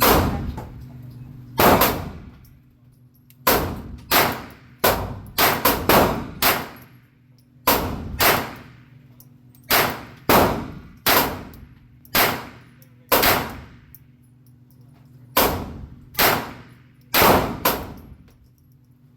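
A firearm firing about twenty single shots at uneven intervals of roughly half a second to two seconds, each crack followed by a short ringing echo.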